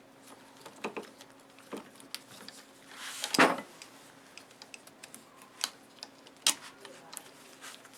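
Small scattered clicks and light knocks of hands handling a circuit board and fitting it down onto its mounting studs, with one louder, longer handling scrape about three and a half seconds in.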